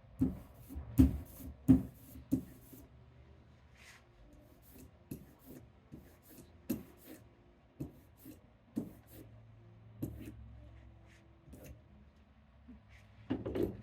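Hard objects being handled and set down on a table during printmaking preparation: a quick run of loud knocks in the first few seconds, then scattered lighter taps and clicks.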